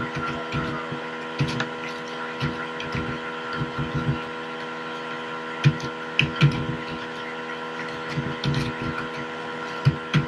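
Computer keyboard keys being typed in scattered, irregular taps, over a steady electrical hum made of several tones.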